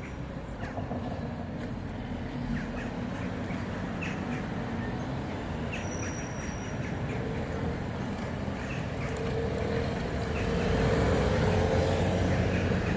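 Street traffic at a city intersection: cars driving past with engine and tyre noise. Near the end it grows louder as a car comes up close and drives by.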